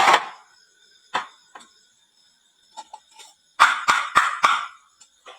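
Marbles clacking down a wooden marble run: scattered sharp clicks and knocks, with a quick cluster of impacts about three and a half seconds in.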